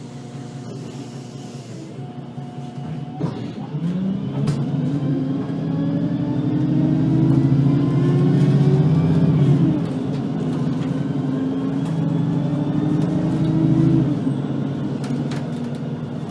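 VDL Citea LLE-120 city bus pulling away and accelerating, its engine note climbing, dipping about ten seconds in, then climbing again before easing off near the end. A short knock sounds just before it moves off.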